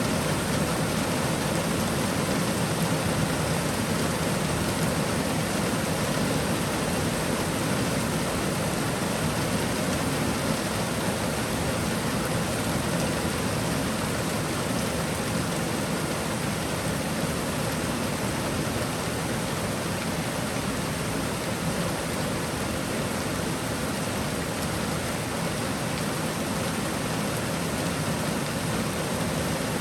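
Steady summer rain shower falling, an even hiss with no breaks.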